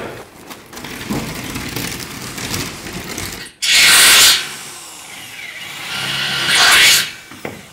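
Power-tool noise from metalwork on a steel frame. A loud burst of harsh noise starts suddenly about three and a half seconds in and lasts under a second. A second burst builds up and cuts off near the end.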